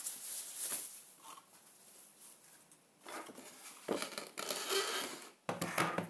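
Rustling and crinkling of the white protective wrap as a digital photo frame is lifted out of its box and unwrapped, in bursts: about a second of handling noise, a quieter lull, then more rustling over the last three seconds.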